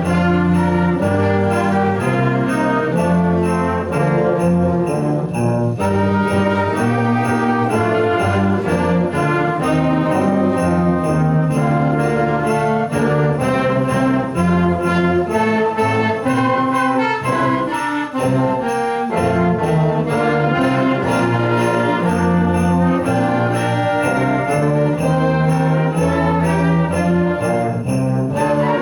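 Instrumental Christmas music played by an ensemble with brass, with sleigh bells shaken to a steady beat.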